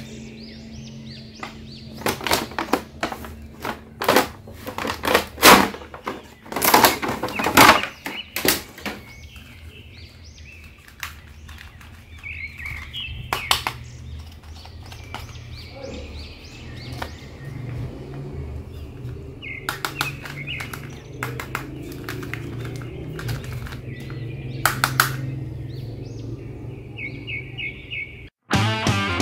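Hands handling a plastic crawling soldier toy and its paper instruction sheet, making a run of sharp clicks, knocks and rustles, densest in the first third. Faint chirping comes and goes over a steady low hum.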